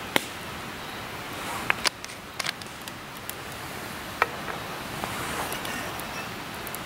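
Small sharp clicks and taps as a chili pepper shaker bottle is shaken over a bowl and set down on a stone table, five or so spread over the first four seconds, over a steady background hiss.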